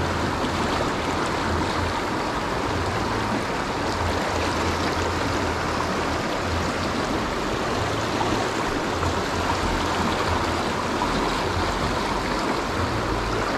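Mountain river water rushing steadily past a wading angler, heard close up, with a low rumble coming and going underneath.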